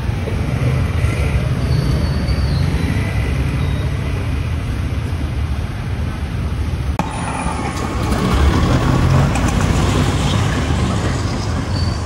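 Steady low rumble of outdoor street noise, with an abrupt change in its sound about seven seconds in.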